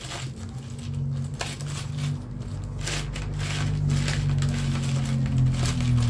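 Small metal nuts and hardware clinking and rattling as they are sorted through by hand, many light clicks in quick succession, over a steady low hum.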